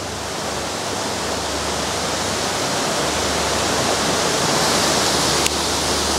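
Waterfall rushing steadily close by, a dense hiss of falling water and spray that grows a little louder over the first couple of seconds. A single sharp click comes about five and a half seconds in.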